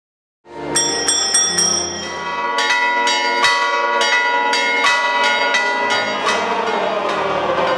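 Church bells ringing: a quick, uneven run of strikes, several a second, each tone ringing on and overlapping the next, starting about half a second in.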